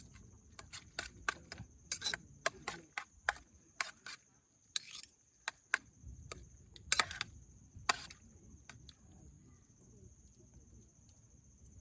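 Irregular sharp clicks and knocks, more than a dozen, thinning out after about eight seconds, over a low rumble and a steady high-pitched hum.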